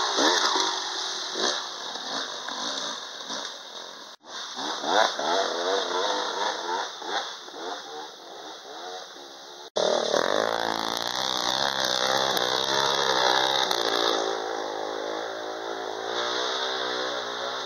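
Dirt bike engines revving up and down with a shifting pitch. The sound cuts off sharply twice, about four and ten seconds in. After the second cut one engine runs more steadily with a slight warble, over a steady high hiss.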